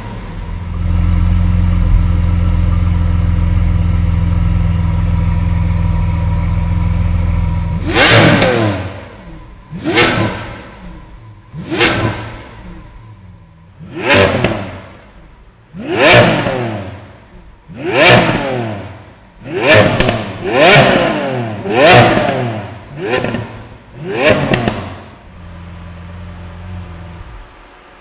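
Lamborghini Aventador SV's 6.5-litre V12 running at a high, steady fast idle just after starting. It is then blipped hard about eleven times, each rev rising sharply and falling back. It settles to a lower idle and stops near the end.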